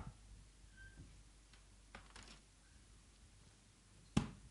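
A quiet pause of faint room tone with a few soft clicks, then one sharp click or knock about four seconds in.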